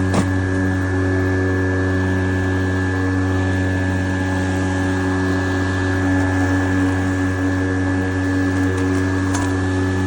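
Stihl RMA 448 VC battery lawnmower running steadily, its electric motor and spinning blade giving an even low hum with a thin high whine above it. A brief tick just after the start and another near the end.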